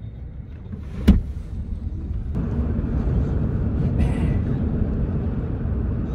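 Road and engine rumble heard from inside a taxi's cabin as it drives. The rumble steps up and grows louder a little over two seconds in, and a single sharp knock comes about a second in.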